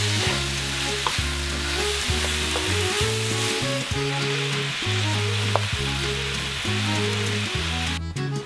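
Sliced beef and onions sizzling as they fry in a nonstick pan, stirred and turned with a wooden spoon, over background music with a steady low bass line. The sizzle cuts off abruptly shortly before the end.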